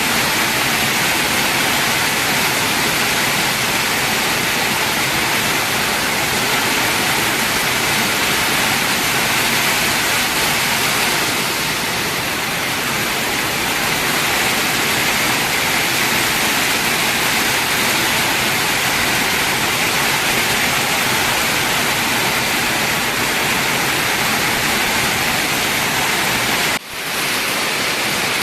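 Heavy rain falling steadily, a dense even hiss of water, which cuts out for an instant near the end and resumes.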